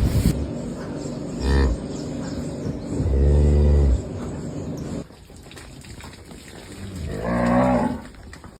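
Cattle mooing: three calls, a short one about a second and a half in, a longer one about three seconds in, and a third, rising call near the end.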